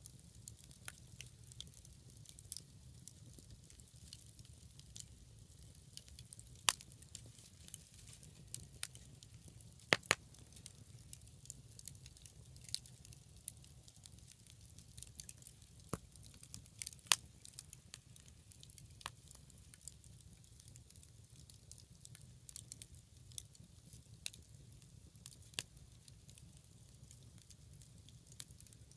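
Scrap-wood bonfire burning, with scattered crackles and a few sharp, louder pops over a steady low rumble and hiss.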